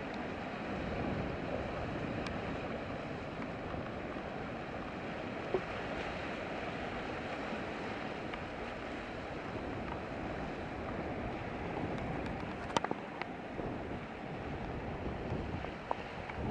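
Sea washing over shoreline rocks, a steady hiss of surf and wind, with a few brief clicks.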